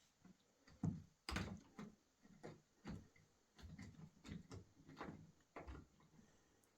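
A series of irregular knocks and thumps, about a dozen, with the loudest ones about a second in.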